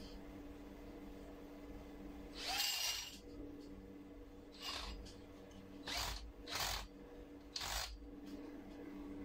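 Cordless drill run in five short bursts, the first the longest and loudest, spinning up with a rising whine, driving the screws that fasten a metal floating-shelf bracket to the wall.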